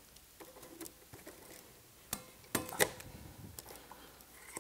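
Scattered clicks and light metal clinks from a razor blade working at heavy-duty zip ties that hold stainless steel poles in a cardboard crate, with a few sharper clicks about two to three seconds in. The blade is getting dull.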